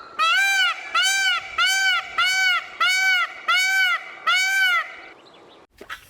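A bird, goose-like fowl, honking seven times in a steady series, each call rising and falling in pitch, then falling quiet about five seconds in.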